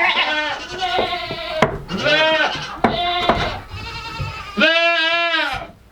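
Nanny goats bleating over and over, several wavering calls with the longest and loudest near the end, as they fuss at being handled for their first milking. A few sharp knocks come in between.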